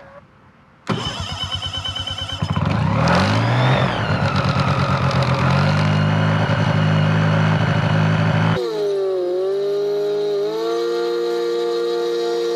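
Motor glider's retractable pylon engine and propeller being started on the ground: it fires unevenly about a second in, catches and revs up a second or so later, then runs steadily. This is its first run after a new engine was fitted and inhibited with preservation oil. Near the end the sound cuts abruptly to a steady pitched drone that dips briefly in pitch and then holds.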